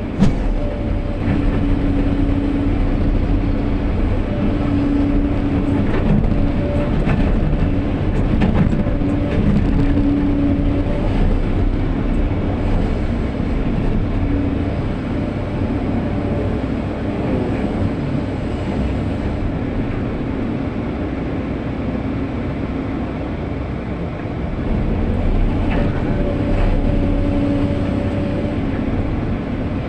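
SANY SY215 excavator running steadily while it works, with a low engine rumble and a whine that comes and goes several times.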